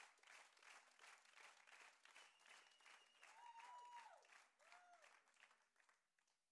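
Faint audience applause, thinning out and dying away near the end, with a few rising-and-falling cheering calls in the middle.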